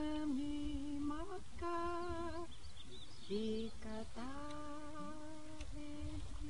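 A voice humming or singing a slow melody in long held notes, sliding up in pitch into some of them.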